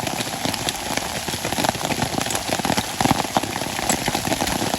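Hail and heavy rain pelting down, a dense, uneven patter of many small hits.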